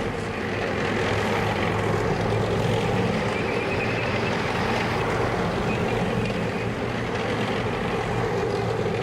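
A steady, unbroken engine drone, holding level throughout.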